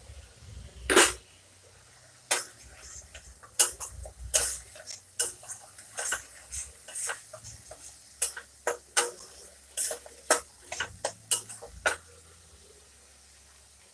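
Flat steel spatula scraping and clacking against a stainless steel kadai in quick, irregular strokes while stirring a frying spice paste, the loudest knock about a second in.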